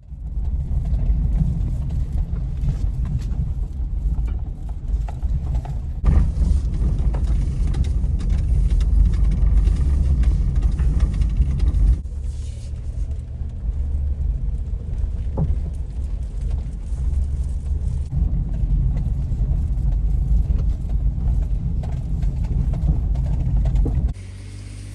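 Daihatsu Atrai kei van driving: a steady, loud low rumble of road and engine noise. The level changes suddenly every few seconds and drops off just before the end.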